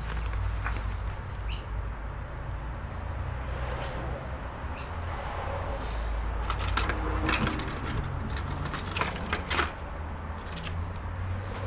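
Clicks and taps of handling a laptop during reassembly after a RAM upgrade, with a cluster of sharp clicks about six to ten seconds in, over a steady low hum.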